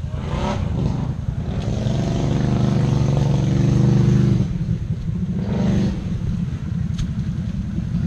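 Can-Am Outlander XMR 650 ATV's V-twin engine running under the rider, the throttle opened from about two seconds in and eased off again about halfway through.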